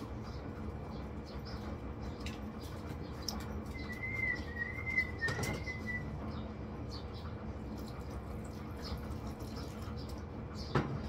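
A short warbling whistle, rising and falling three times, over a steady background hum, with a few faint clicks.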